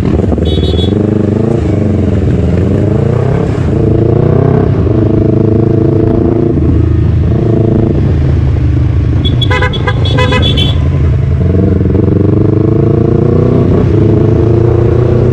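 Yamaha R3 motorcycle's parallel-twin engine running under the rider, its pitch rising and falling as the revs change. A horn toots briefly about half a second in, then again in a quick series of short toots around ten seconds in.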